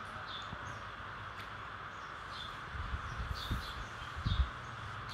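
A baby monkey knocking against a low table and the things on it, with a few low thumps in quick succession about three and four seconds in, over a steady hiss and faint short high chirps.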